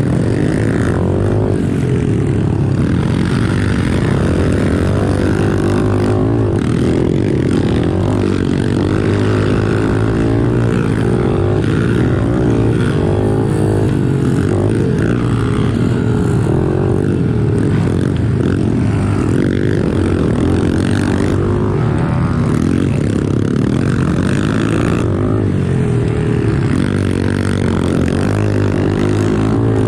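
Small pit bike engine revving up and down without a break as it is ridden hard, its pitch rising and falling again and again with throttle and gear changes.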